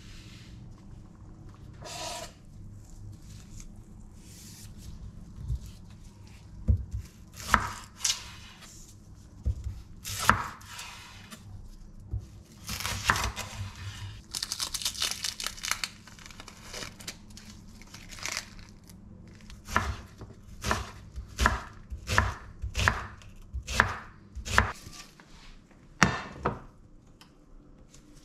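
Chef's knife cutting an onion on a bamboo cutting board: knocks of the blade on the wood, irregular at first, with a stretch of dry crackling around the middle as the onion's papery skin is handled, then a run of steady chops about one or two a second. A single knock near the end.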